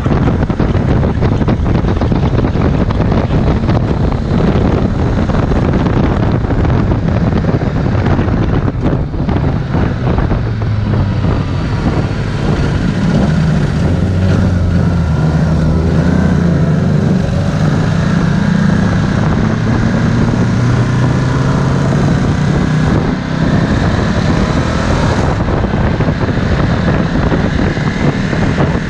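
Ducati Multistrada 1260 S's V-twin engine running under way, masked by heavy wind noise on the microphone. From about halfway the engine note comes through more clearly and rises and falls as the bike speeds up and slows through the bends.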